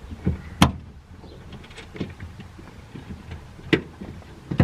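Clicks and knocks of seatbelt mounting hardware being handled and fitted, with three sharp clanks standing out.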